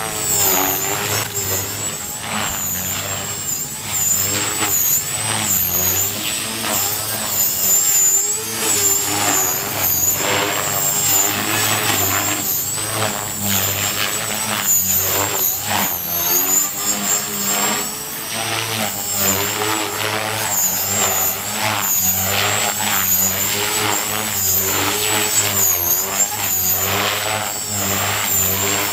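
ALIGN T-REX 450 PRO electric RC helicopter flying: a continuous high-pitched whine from its brushless motor and drive gears, with the rotor buzz underneath, wavering up and down in pitch as the helicopter manoeuvres.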